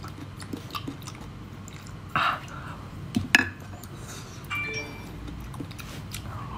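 Close-up eating sounds as boiled sea snail meat is pulled apart by hand: small wet clicks and smacks. There is a louder smack about two seconds in and a sharp click a little after three seconds.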